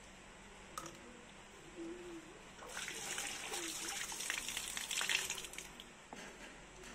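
Water gushing from a tap over the blade of a large knife being rinsed, splashing into a plastic basin for about three seconds from nearly three seconds in.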